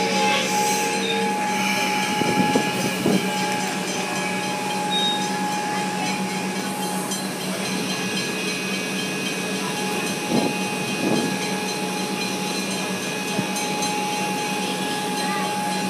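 Melbourne Comeng electric train standing at the platform, its onboard equipment giving a steady hum and hiss, with a few short knocks.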